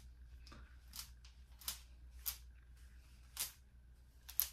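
A brush being raked through thick, coily natural hair: about six short, faint, scratchy swishes, one every half-second to second.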